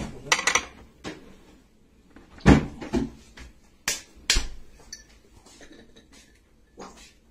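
Irregular knocks and clatters of handling in a metal roasting tin as peeled chestnuts are placed around a stuffed turkey. The strongest knocks come near the start and again about two and a half and four seconds in.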